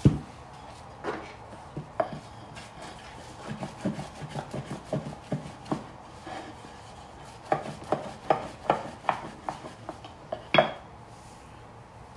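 Thin wooden rolling pin knocking and rolling on a wooden board as dumpling wrappers are rolled out by hand: scattered wooden taps, then a quick run of knocks, about three or four a second, in the second half, with one louder knock near the end.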